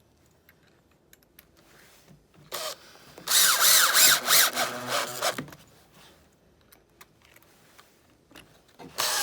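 Power drill driving a screw into a recycled-poly rack panel: a short blip, then a run of about two seconds with the motor's pitch rising and falling, and another screw starting near the end.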